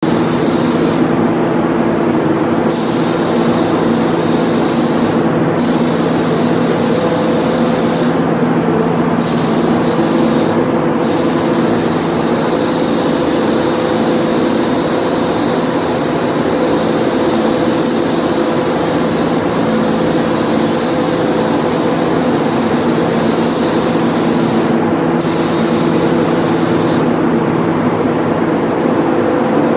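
Compressed-air paint spray gun hissing in long passes, the trigger let off briefly several times between strokes, over a steady low hum.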